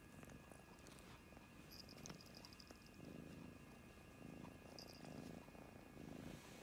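Persian cat purring faintly, the purr coming and going in pulses about once a second.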